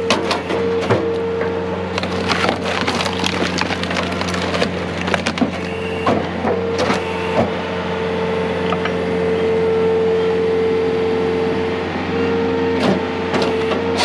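Skid-steer firewood processor forcing a log through its splitting wedge: wood cracking and splintering as the pieces split off, over a steady hum from the John Deere track loader's engine and hydraulics.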